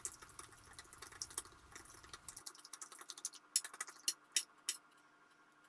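Faint clicking and ticking of a hand wire whisk beating batter in a plastic bowl, the wires tapping the bowl in quick irregular strokes, with a few sharper ticks just before it stops.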